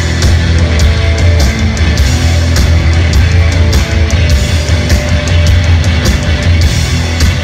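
Live rock band playing loudly: electric guitar over bass and drums, with cymbal and drum hits recurring several times a second.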